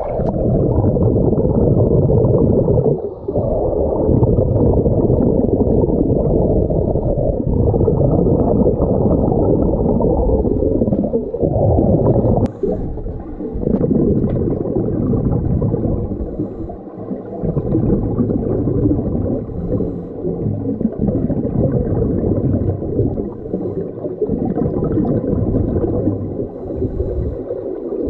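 Muffled underwater rumble and gurgling of a scuba diver's regulator and exhaust bubbles. It swells and dips every few seconds.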